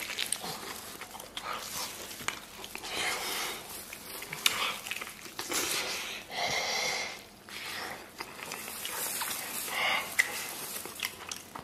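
Close-up eating sounds: chewing and smacking on a mouthful of braised fatty meat, with wet clicks and breaths coming in irregular bursts.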